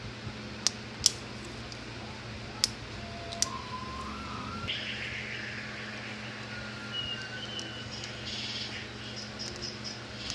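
A few sharp clicks and taps from a small screwdriver and the opened plastic housing of a neckband Bluetooth earphone being handled, four of them in the first few seconds, over a steady low electrical hum. A stretch of scratchy noise follows in the middle.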